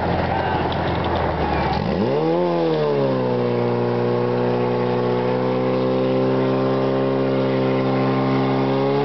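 Portable fire pump's engine revving up sharply about two seconds in, then running at a steady high speed as it drives water through the hoses.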